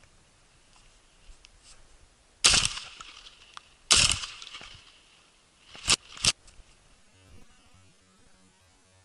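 Two shotgun shots from an Akdaş 212 S, about a second and a half apart, each with a short echoing tail, followed about two seconds later by two sharp knocks in quick succession.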